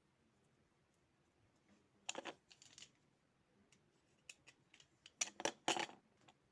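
Two short clusters of clicks and rustling, about two seconds in and again near the end, with a few light ticks between: small plastic parts of a computer mouse being handled and fitted during repair.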